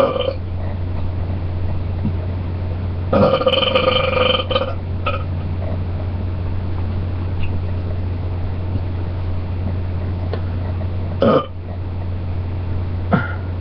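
A person belching: a long pitched belch of about a second and a half a few seconds in, with several short belches at the start, just after the long one, around 11 seconds and near the end. A steady low hum sits underneath.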